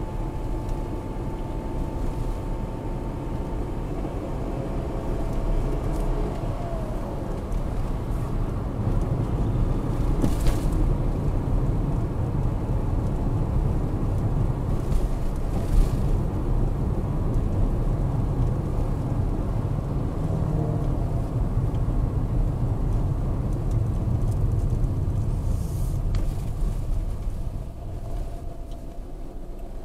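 Car driving, heard from inside the cabin: a steady low rumble of engine and tyres on the road, with two brief knocks about ten and sixteen seconds in. It gets quieter near the end as the car slows behind traffic.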